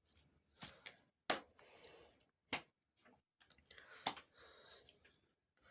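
A few sharp taps and knocks, unevenly spaced, with faint rustling between them: handling noise from working dough at a table.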